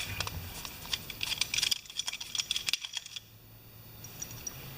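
Light metallic clicking and tapping of small hand tools against a carburetor as its brass jet is worked loose, a quick run of ticks that stops about three seconds in.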